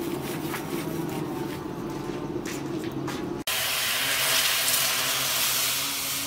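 Charcoal forge fire crackling faintly over a steady low hum, then, about three and a half seconds in, a loud steady sizzling hiss as the red-hot steel axe head is quenched in a trough of water.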